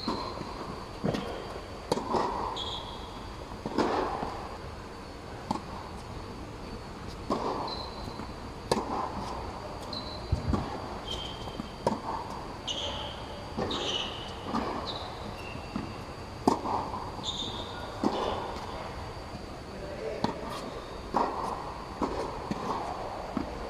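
Tennis rally: a ball struck by rackets and bouncing on a hard court, sharp hits every second or two that echo under an air-supported dome, with short squeaks of sneakers on the court surface. A faint steady high whine runs underneath.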